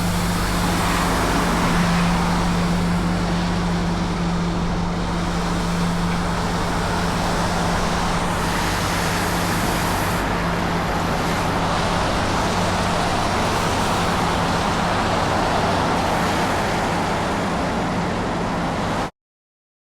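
Tymco 435 regenerative-air street sweeper running, a steady drone with one constant low tone under a wide even hiss. It cuts off abruptly near the end.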